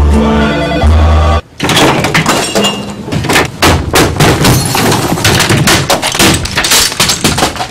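Music with a heavy bass line plays for about a second and a half, then cuts off. A rapid run of crashes, thuds and breaking glass follows as office equipment (a computer, a desk phone and other desk items) is smashed and knocked to the floor.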